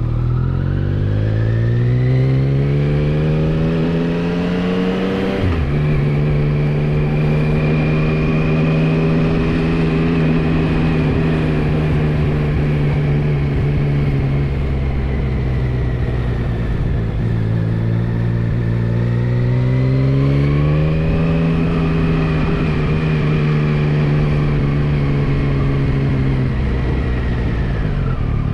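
Yamaha MT-09 SP's inline three-cylinder engine under way. The revs climb for about five seconds, then drop sharply on an upshift and hold steady. They ease off, climb again about two-thirds through, and fall away near the end.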